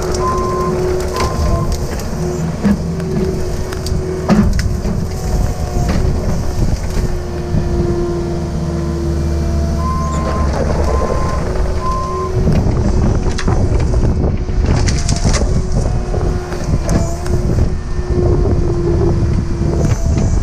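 Cat 306 excavator's diesel engine running under load with a shifting hydraulic whine as the bucket and thumb grab and crush brush, with repeated snaps of breaking branches and knocks. Short pulsed high tones come twice, near the start and about halfway through.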